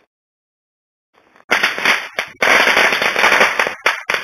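Silence, then about a second and a half in a sudden loud, dense crackling noise that runs on with several brief dropouts.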